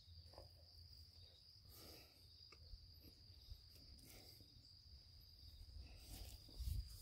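Near silence with a faint, steady high-pitched trill of crickets. A faint low rumble comes in near the end.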